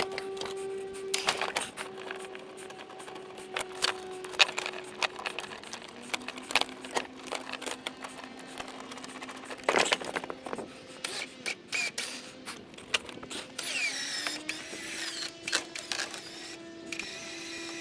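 An engine's steady whine shifting pitch: it holds high, drops about six seconds in, and climbs back up near the end. Frequent sharp metal clanks and knocks sound over it.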